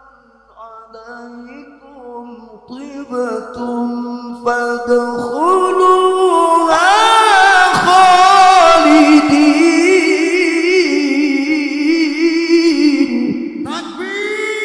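A man reciting the Qur'an in melodic tilawah style into a microphone, holding one long, ornamented vowel. It starts low and quiet, climbs to a loud, high, wavering passage about six seconds in, and closes with a high phrase that falls away near the end.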